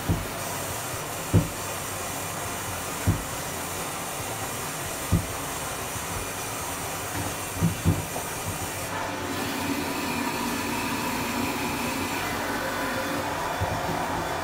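Bathtub faucet running, water pouring into the tub with a steady rushing hiss. Six short dull knocks come in the first eight seconds, the last two close together.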